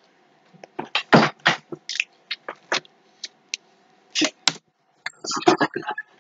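Beatboxing: a string of short, sharp mouth-percussion sounds in irregular clusters, with a short break about three seconds in.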